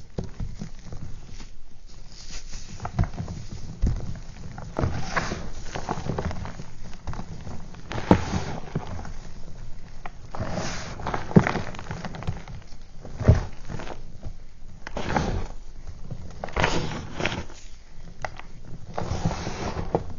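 Hands crushing and crumbling blocks of gym chalk: irregular dry crunching and crackling, with crumbs and powder falling back into a bin of crushed chalk. A few sharper, louder crunches stand out.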